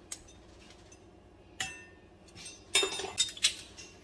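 Clinks and taps of small spice jars and a ring of metal measuring spoons being handled and set down on the kitchen counter: a light tap at the start, a sharper click about a second and a half in, then a cluster of clinks around three seconds.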